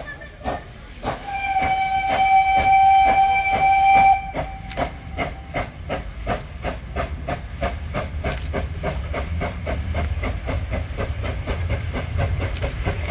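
FS Class 740 steam locomotive pulling away. About a second in, its steam whistle sounds one long blast of about three seconds. Under the whistle, the exhaust chuffs steadily quicken as the engine gathers speed, and a low rumble from the train grows toward the end.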